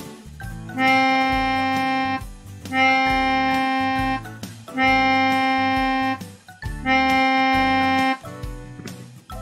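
Four long notes on one pitch from a sustained, reedy instrument tone, each held steady for about a second and a half with short gaps between, over soft background music. They are examples of long sounds, one note to each count of four.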